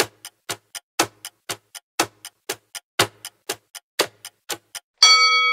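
Countdown clock ticking about four times a second, louder on each whole second. About five seconds in, a chime is struck and rings on, slowly fading, marking that time is up.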